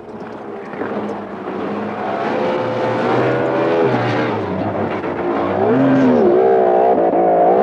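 Motorboat engine running, growing steadily louder as the boat approaches, its pitch rising and falling.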